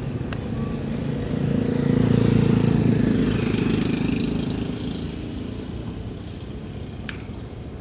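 A motorbike engine passes close by, growing louder for about two seconds and then fading away.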